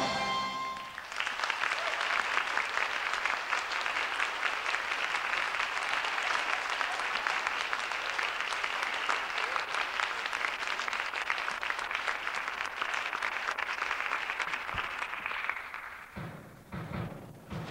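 A choir's held closing chord cuts off, then an audience applauds for about fifteen seconds. The applause dies away near the end as low thuds begin.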